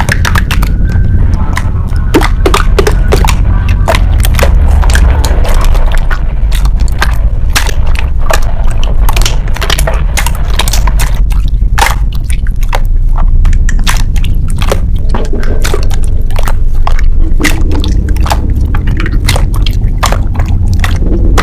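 Slime being squeezed and poked, giving a dense run of sharp crackling clicks and squishes, over a steady low drone.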